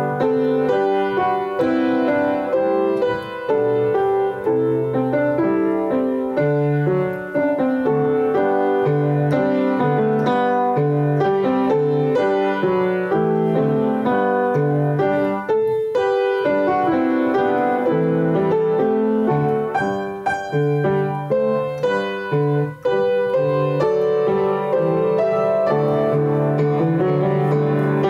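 Solo piano music played at a steady level.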